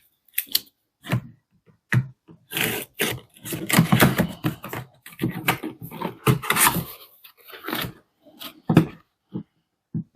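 Cardboard box being opened and unpacked by hand: irregular rustling, scraping and knocks of cardboard and packaging. The handling is busiest in the middle and thins out to a few separate knocks near the end.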